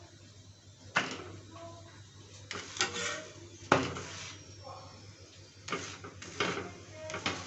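A metal spatula scrapes and knocks against an iron tawa as it presses and turns a stuffed paratha. There are several sharp clanks and scrapes, the loudest about a second in and again just before the four-second mark, and a quicker run of them near the end.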